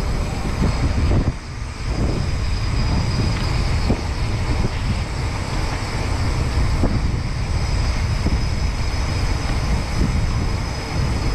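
Wind buffeting the microphone of a camera on a moving bicycle: a steady, loud rumble that eases briefly about a second and a half in.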